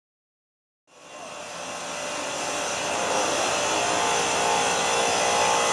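Steady whir of a motor-driven machine with rushing air. It fades in about a second in and grows louder.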